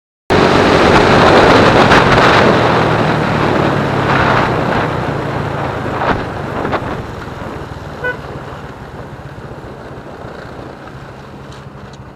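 Motorcycle engine running steadily under heavy wind rush, cutting in suddenly and loudest at first, then easing. A short beep sounds about eight seconds in.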